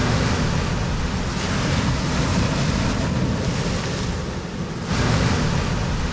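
Ocean surf breaking against a rocky shore ledge, surging louder and easing off in waves, with wind buffeting the microphone.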